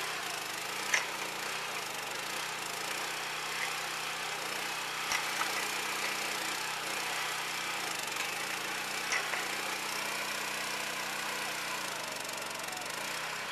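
Small gasoline engine of a cable tool well drill rig running steadily as it powers the rig's hydraulics, with a sharp click about every four seconds.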